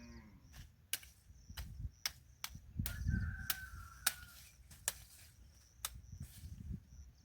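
A series of sharp clicks and snaps, about ten at uneven intervals, over low outdoor rumble.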